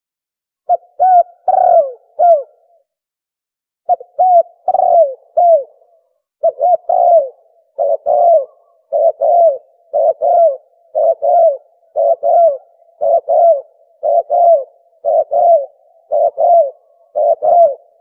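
Spotted dove (tekukur) cooing, played as a hunting caller. Phrases of two or three short, low coos, each falling at the end, repeat about once a second, with a short break about three seconds in.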